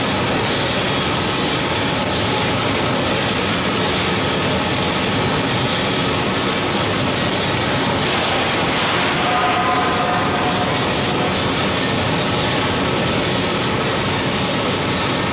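12 kg drum coffee roaster's cooling tray running: the rotating stirring arms sweep freshly roasted beans around the perforated tray while the cooling fan draws air through it, a steady rushing machine noise.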